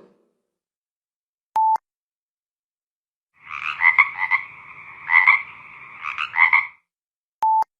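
Electronic tones from a Nokia mobile phone's speaker: a short single beep, then about three seconds of a buzzy, croaking tone that swells three times, then another short beep like the first.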